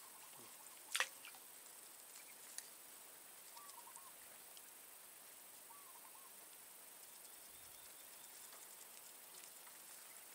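Near silence over a quiet swamp, broken about a second in by one brief sharp sound as the float and baited line of a long fishing pole land on the water. A small click follows, then two faint short chirping calls.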